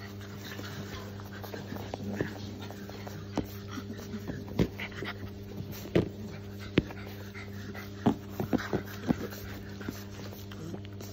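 Shar pei puppies play-fighting, with small puppy vocal sounds and panting and a scatter of short sharp knocks and clicks, most of them in the middle, over a steady low hum.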